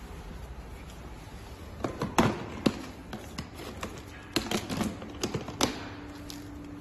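A clear plastic storage box being handled, with sharp plastic clicks and knocks in two clusters as the lid comes off and is clipped back on. A faint steady hum comes in near the end.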